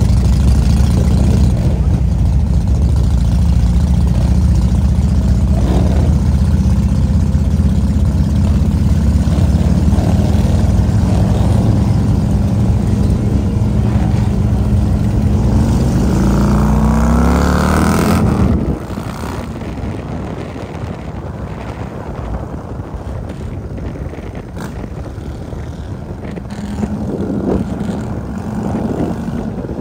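Harley-Davidson V-twin motorcycle engines running at idle with a deep, steady note, and an engine's pitch rising sharply a little past halfway. The sound then drops abruptly to quieter engine, road and wind noise as the motorcycle rides along.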